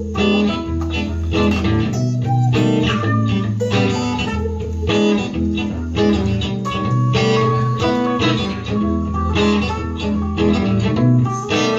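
Instrumental passage of a song: plucked and strummed guitar over a bass line, with a steady beat and a bluesy feel.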